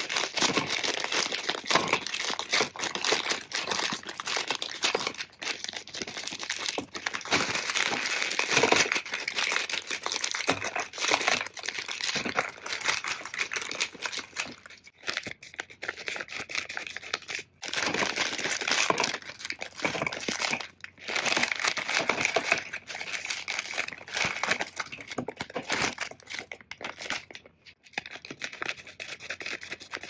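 Plastic packaging of frozen fish balls crinkling as the bags are handled, cut open and emptied, with small clicks and knocks as the frozen balls drop into plastic storage tubs. There are a few brief pauses.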